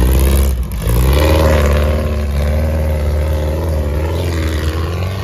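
Off-road buggy engine running hard under load as it climbs a steep dirt bank, dipping briefly just under a second in, then holding a steady engine note.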